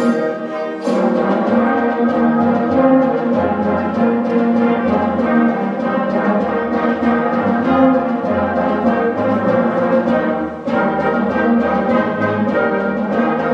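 Youth wind band playing an arrangement of 16th-century dance music, woodwinds and brass together. The ensemble breaks off briefly between phrases about a second in and again about ten seconds in.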